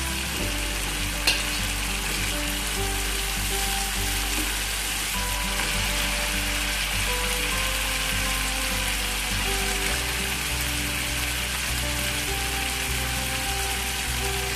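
Green chili paste with chicken stock sizzling steadily in hot oil in a frying pan, with one light tap about a second in. Soft background music sits underneath.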